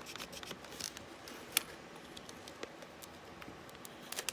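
Scissors and plastic blister packaging being worked at to free a small padlock: scattered light clicks and scrapes, with one sharper snip about a second and a half in and a few more near the end.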